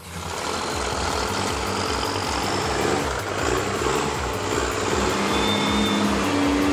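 Heavy truck engine running steadily with a low throb; a steady hum joins in about five seconds in.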